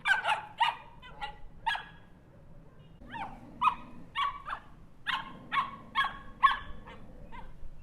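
Small dog barking: quick, high-pitched yaps in two runs, a few close together at the start, then a pause of about a second, then a longer run of about nine barks.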